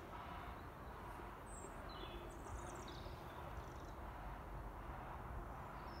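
Quiet outdoor garden ambience: a steady low background rumble, with a few faint, short, high bird chirps between about one and a half and three and a half seconds in.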